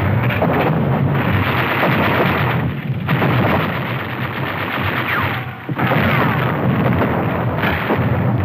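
Dense rifle and machine-gun fire, continuous and loud, easing briefly about three seconds in and again just before six seconds.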